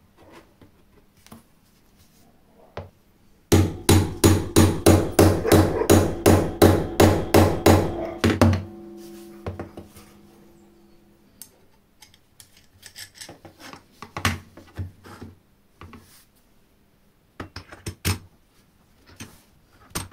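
Hammer striking metal in a quick run of about five seconds of blows, roughly three a second, followed by a short ringing hum. Later come scattered light clicks and knocks of metal parts being handled on the bench.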